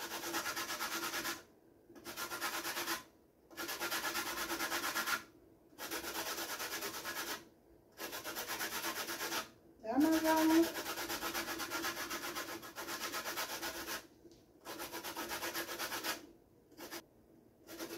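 Lime rubbed hard against a metal box grater to take off its zest: rapid rasping strokes in bouts of a second or two, with short pauses between them.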